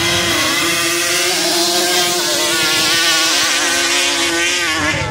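Racing quad (ATV) engines at high revs, making a sand drag run up the dune strip. The engine note holds steady at one high pitch and wavers near the end.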